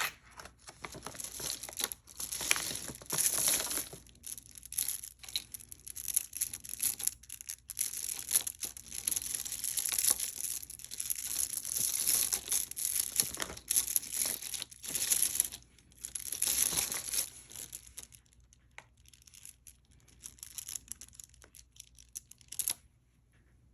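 Crinkling and rustling of packaging, plastic bags or wrapping, handled in irregular bursts while jewelry is unwrapped and sorted; it thins out over the last few seconds.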